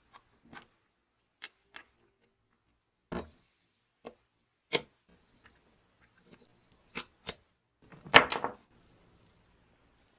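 Scattered small clicks and scrapes of a utility knife blade prying at the round clear cover of a spirit level's bubble vial, set in a wooden body. Just after eight seconds there is a louder burst of scraping and clatter, the loudest thing here.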